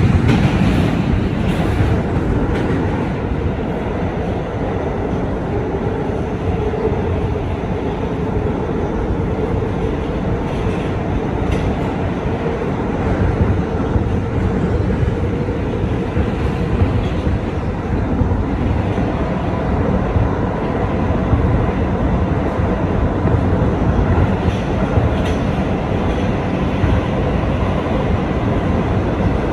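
Kawasaki R211A subway train running at speed in the tunnel on an express run past stations it does not stop at, a steady rumble of wheels and motors on the rails.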